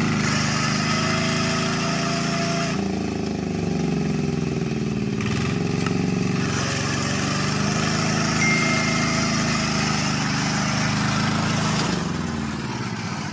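Power tiller's single-cylinder diesel engine, rated at 32 horsepower, working hard as it drives a loaded trolley through deep mud. Its speed rises and falls several times with the load, and the sound falls off near the end.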